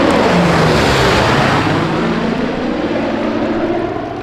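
Propeller-driven aircraft passing with its engines running, the pitch sinking slightly as the sound slowly fades.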